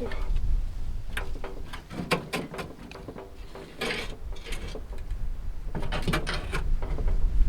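Irregular knocks, clicks and clatter, as of objects or a door being handled, over a low rumble that grows toward the end.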